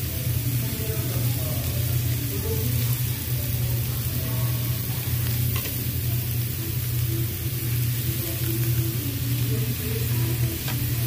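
Marinated meat, shrimp and vegetables sizzling on a round tabletop Korean BBQ grill plate: a steady hiss over a steady low hum, with a couple of faint clicks of metal tongs.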